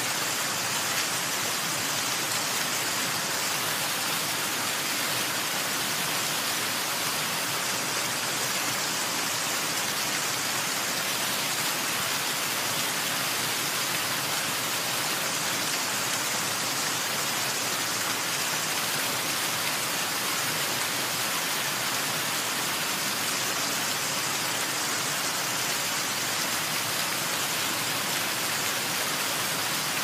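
Water falling in many thin streams and drips down a mossy rock face, a curtain-like waterfall splashing steadily with an even, hissing spatter.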